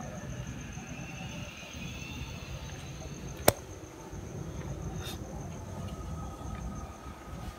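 Crickets chirping in a steady, rapidly pulsed high trill, with one sharp click about three and a half seconds in and low rustling underneath.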